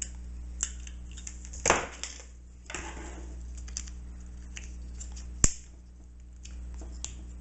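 Handling of a plastic tripod quick-release head as a trimmed piece of wooden paint stick is worked into it: scattered clicks and short scrapes, with a sharp snap about five and a half seconds in as the piece locks on. A steady low hum lies underneath.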